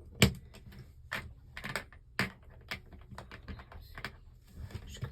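Plastic Lego bricks clicking and clattering as pieces are pressed down and handled, a handful of irregular sharp clicks with the loudest near the start.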